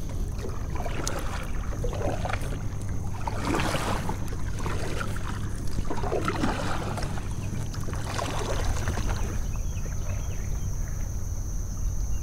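Kayak moving through swamp water, with water swishing at the hull in uneven strokes over a steady low rumble.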